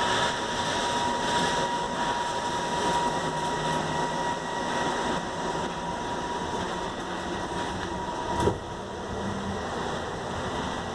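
Van Hool ExquiCity double-articulated trolleybus heard from inside while driving: a steady electric drive whine over road and rolling noise. About eight and a half seconds in, a high steady tone stops with a single sharp knock.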